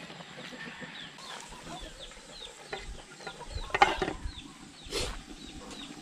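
Frog adobo simmering in a metal wok while wooden spatulas stir it, then a glass lid set down on the wok with a clatter about two-thirds of the way in, followed by a second knock about a second later. Over it a chicken keeps up short, repeated, falling chirps.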